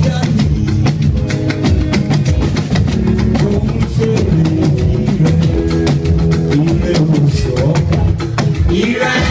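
Band music with a drum kit and guitar playing a steady, busy beat.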